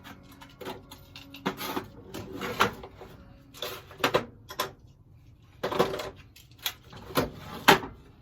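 Small HVAC electrical parts such as contactors and capacitors being picked up and set down, a string of irregular knocks and rattles of hard plastic and metal, about a dozen in all.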